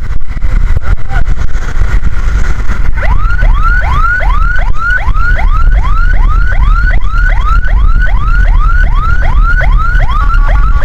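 Ambulance siren in a fast yelp, rising sweeps repeating about three times a second, starting about three seconds in over heavy engine and road rumble. Near the end it briefly changes to steady tones, then goes back to yelping.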